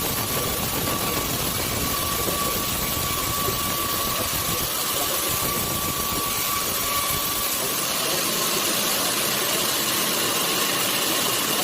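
Sawmill machinery running steadily: a motor's even, noisy drone with a thin whine that fades out about two-thirds of the way through, and a low rumble that drops away about halfway.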